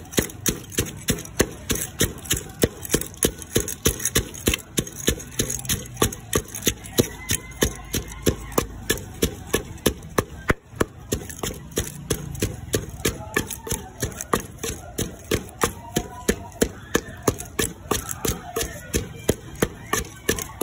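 Wooden pestle pounding dried red chillies in a clay mortar: a steady run of dull thuds, about three a second.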